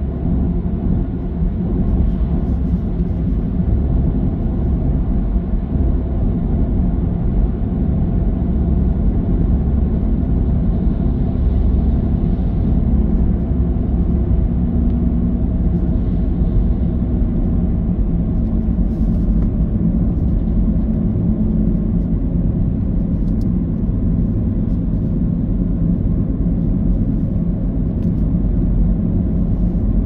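A car driving at steady speed: a continuous low rumble of engine and road noise with no marked changes.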